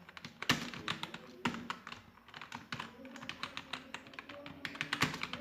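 Fast typing on a computer keyboard: a quick, uneven run of key clicks, several a second, with a few harder strikes among them.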